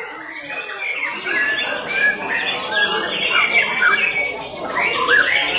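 White-rumped shamas (murai batu) singing from their cages, several birds at once: a dense, overlapping run of short whistles and gliding notes.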